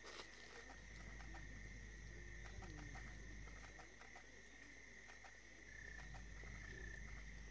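Faint night ambience: a steady, high insect trill, with a short chirp repeating about once a second in the second half and a few soft clicks.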